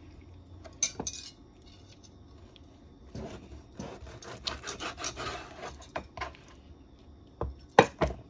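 Knife slicing beef liver into strips on a cutting board: a run of cutting strokes with sharp taps of the blade on the board, the loudest taps near the end.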